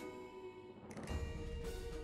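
Instrumental background music with percussion; a bass line and beat come in about a second in.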